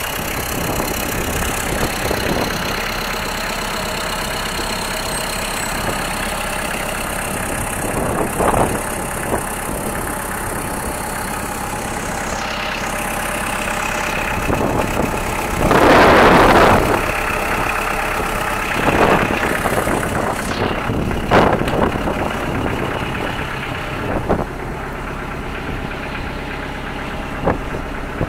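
Kubota L2501 compact tractor's three-cylinder diesel engine idling steadily, with a few short knocks and one brief, louder rushing noise about halfway through.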